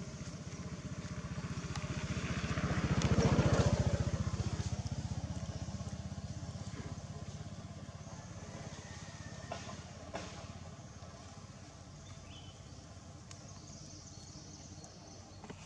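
A motor vehicle's engine passing by, its low pulsing drone growing louder to a peak about three and a half seconds in and then slowly fading away.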